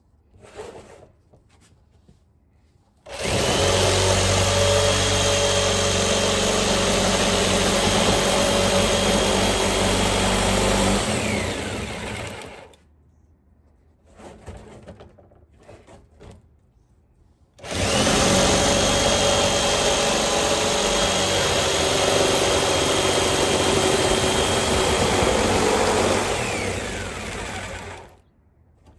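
Jigsaw cutting into a 55-gallon barrel, running in two stretches of about nine and ten seconds, each starting suddenly and winding down, with a quiet pause between.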